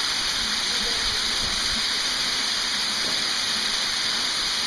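Waterfall in a narrow canyon, falling water rushing in a steady, even hiss.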